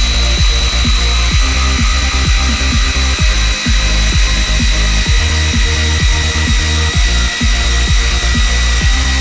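Electronic dance music with a heavy, steady beat, over a DeWalt cordless impact driver running without a break as it drives a long screw down into a block of wood.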